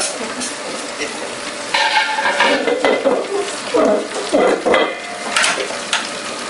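Stainless-steel table-top wet grinder being handled: metal clinks, clatter and scraping, with a couple of sharp knocks near the end.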